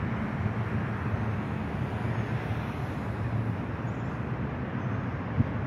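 Steady low background rumble, like distant road traffic, with one brief knock about five and a half seconds in.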